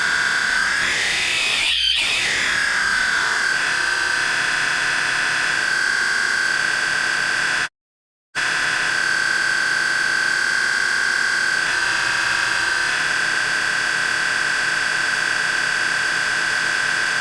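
A shrill, steady screech sound effect, layered and buzzy, held at one high pitch. About two seconds in it swoops up and back down. Near eight seconds it cuts out for about half a second, then resumes unchanged.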